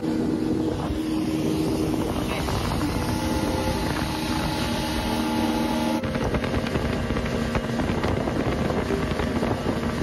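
Speedboat motor running steadily under way, a steady engine hum under wind noise on the microphone.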